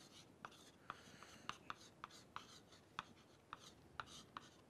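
Chalk writing on a chalkboard: a string of faint, short taps and scratches, about three a second, as the strokes of letters and symbols are made.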